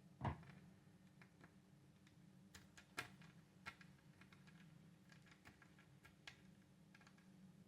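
Faint scattered clicks and light taps of a small screwdriver and laptop parts being handled, over a low steady hum. The loudest is a single knock about a quarter of a second in.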